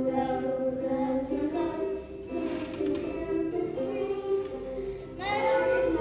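Young children singing a phonics song together in held, pitched phrases, with a louder phrase starting near the end.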